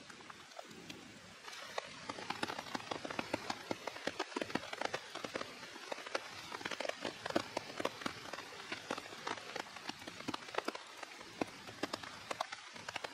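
Rain falling steadily, with many close drops tapping in quick, irregular succession; it grows louder about a second and a half in.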